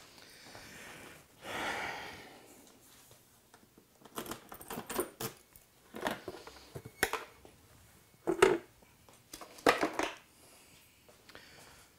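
A brief rustle about two seconds in, then an irregular run of clicks and knocks from hand work on a motorcycle around its fuel tank, with small metal and plastic parts being handled. The loudest knocks come near the end.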